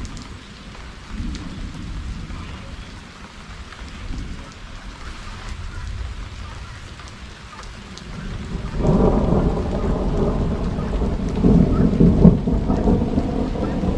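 Steady rain with low rumbling thunder. About two-thirds of the way in, a louder, longer roll of thunder builds and rumbles on.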